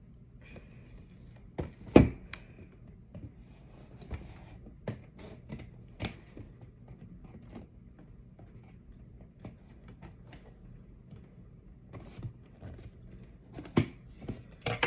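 Scattered clicks, taps and knocks of a cardboard toy box and its plastic packaging being handled and opened, with the loudest knock about two seconds in and a few more near the end.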